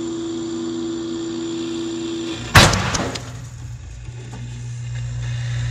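A 12-gauge shotgun shell, set off by the laser cutter's beam, goes off with a single loud bang about two and a half seconds in, over the laser cutter's steady hum.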